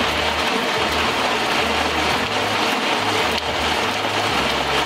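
Small sheet-fed offset printing press running steadily while printing, a continuous mechanical clatter of its rollers and sheet-feed mechanism over a low pulsing throb.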